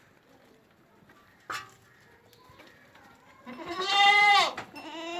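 Two goat bleats, Sirohi goats: a loud wavering call about three and a half seconds in, then a second, longer call starting just before the end. A brief knock comes earlier.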